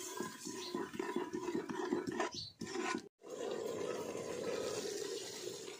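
A spoon stirring and scraping curry in an aluminium pot, in quick irregular strokes. After a brief break about three seconds in, a steady rushing noise takes over.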